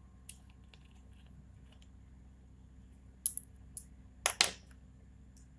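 Small sharp clicks and clinks of a dropper bottle being opened and its glass dropper taken out, with a short cluster of louder clicks a little past the middle.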